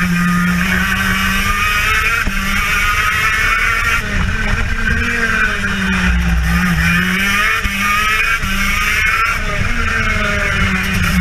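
TM KZ10B 125cc two-stroke shifter kart engine running at high revs. The engine note sags about four seconds in, lifting off for a corner, then climbs again.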